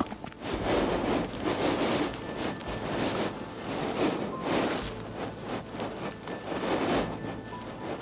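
Hydrothermal steam vent hissing and rushing, swelling and easing unevenly about once a second.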